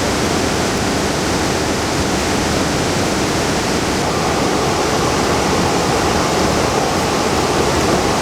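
Waterfall and stream water rushing in a steady, loud, even wash.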